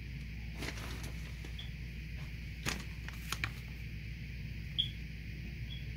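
A few light knocks and rustles of grocery packages being handled and set down on a wooden counter, over a steady low background hum.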